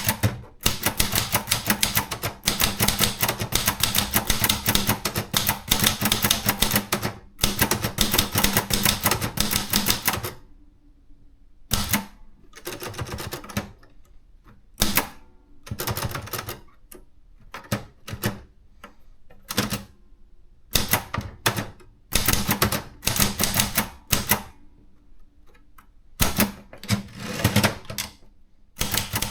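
Contessa 2 de luxe portable manual typewriter being typed on: a fast, continuous run of key strikes for about ten seconds, with one short pause, then shorter bursts of keystrokes separated by brief pauses.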